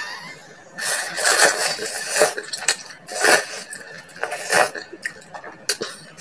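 A person slurping chili-hot water spinach in coconut sauce off chopsticks, with noisy sniffs and breaths in about five bursts roughly a second apart; the chili heat is making her nose run.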